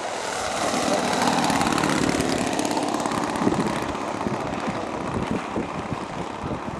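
Twin-propeller RC model of a Canadair CL-415 flying by low and close, its motors and propellers loudest about a second or two in, then fading as the model settles onto the water.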